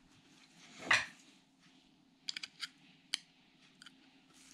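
Steel coaster-brake hub parts being handled, giving a few faint, sharp metal clicks about halfway through. A short rushing noise comes about a second in, over a low steady hum.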